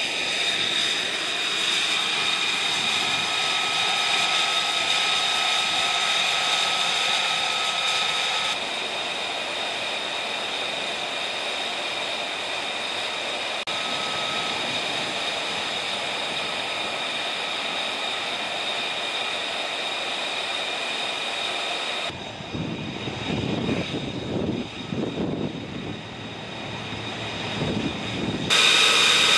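F-35B Lightning II jet engine running on the ground, a steady high whine over a rushing hiss. About three-quarters of the way through the whine drops away for several seconds and a lower, uneven rumble takes its place, then the whine comes back.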